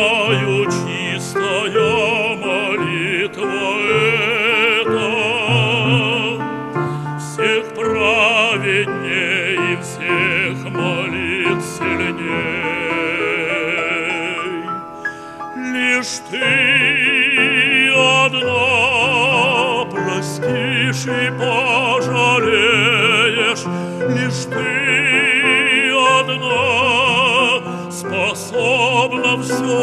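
A male opera singer sings an art song in full voice with wide vibrato, accompanied by piano, with a brief lull about halfway through.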